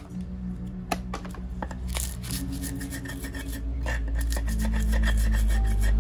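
Repeated hand scraping and rasping with sharp clicks, from food being prepared by hand, over a low steady hum that grows louder about halfway through.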